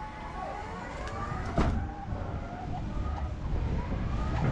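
Electric pallet jack moving a shrink-wrapped pallet across a truck's cargo floor: a low rumble with squeaks and creaks that slide up and down in pitch, and a sharp knock about a second and a half in.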